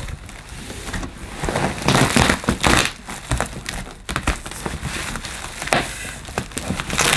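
Bubble wrap crinkling and cardboard rustling and scraping as a wrapped part is pulled out of a cardboard shipping box, with irregular crackles and a few knocks.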